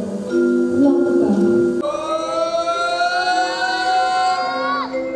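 Background music of sustained notes; about two seconds in a long held high note enters, drifts slowly upward and slides down near the end.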